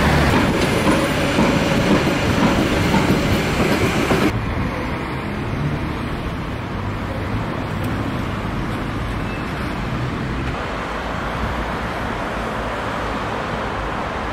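A city train passing close by, with street traffic around it. About four seconds in, it cuts abruptly to a quieter, steady city street background.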